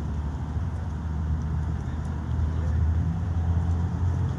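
Street traffic: a low, steady engine rumble from vehicles on the road, growing a little louder after about two and a half seconds.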